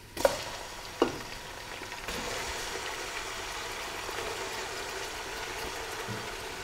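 Raw mutton pieces going into hot oil in a pressure cooker and frying with a steady sizzle. Two short knocks come in the first second, and the sizzle grows a little louder about two seconds in.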